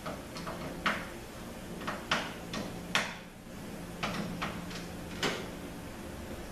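Screwdriver driving the bolts down on a 48RE transmission valve body: about eight separate sharp metallic clicks and scrapes at an uneven pace, over a steady low hum.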